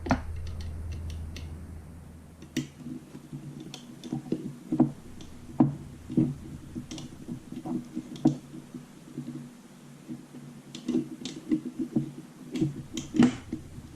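Hand disassembly of a gel blaster's magazine release: irregular light clicks and knocks of a hex key, small screw and metal parts being handled as the release's side plate is taken off.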